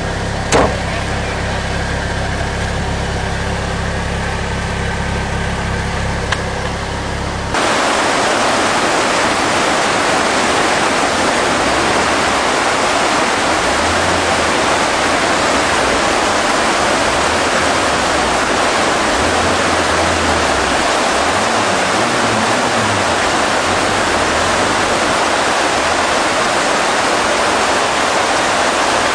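An off-road 4x4's engine running steadily while the vehicle sits stuck in deep mud, with a sharp click about half a second in. After about seven seconds it gives way suddenly to the loud, even rush of a river in flood, with a faint engine rising and falling underneath as the 4x4 fords the water.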